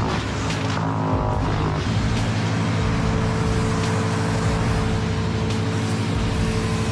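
Two-stroke chainsaw engine running at speed, its pitch gliding briefly about a second in, then holding steady.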